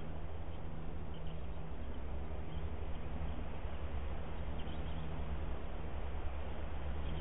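Steady background hiss with a low hum from an outdoor nest camera's microphone, with a few faint, short high chirps scattered through it.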